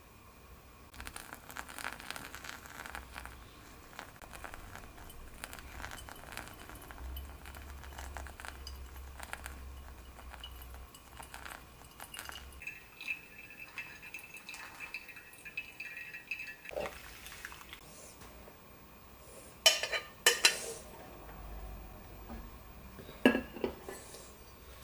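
Hot water poured in a thin stream from a kettle onto coffee grounds in a ceramic pour-over dripper, a soft trickle and fizz. Near the end come sharp clinks of ceramic and glass, a quick pair and then one more, as the dripper is handled and lifted off above the glass server.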